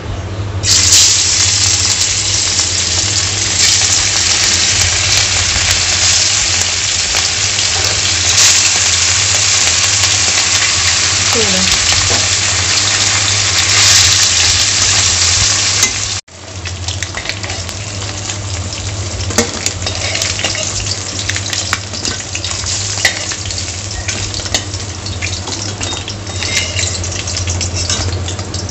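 Rohu fish pieces frying in hot oil in a metal kadai, a loud steady sizzle, with a spatula scraping and clicking against the pan as the pieces are turned and lifted. About halfway through the sizzle stops abruptly and comes back quieter.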